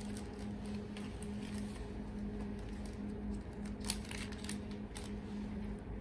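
Steady low electrical hum of lab instruments, with a few faint clicks, the sharpest about four seconds in.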